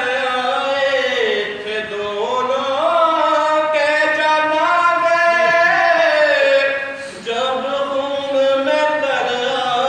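A man reciting a nauha, a Shia mourning elegy, in a chanted melody with long held notes that rise and fall. There is a short break for breath about seven seconds in.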